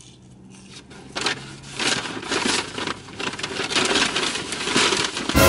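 Paper takeout bag and food packaging crinkling and rustling as it is rummaged through, in search of a barbecue sauce cup. The sound starts about a second in, with a louder rustle just before the end.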